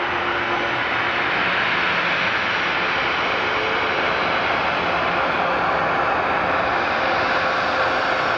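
Bombardier Global 6000's two rear-mounted Rolls-Royce BR710 turbofans running at low taxi power as the jet rolls by, a steady rushing whine with a faint steady hum underneath.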